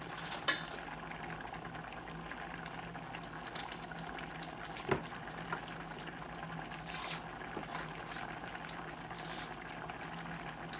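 Pots bubbling steadily on an electric stovetop, with a faint steady hum beneath. A few light clicks and knocks of kitchenware come from the counter.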